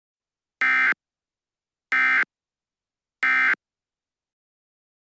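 Three short buzzy bursts of Emergency Alert System SAME digital data tones, evenly spaced: the end-of-message signal that closes an EAS alert.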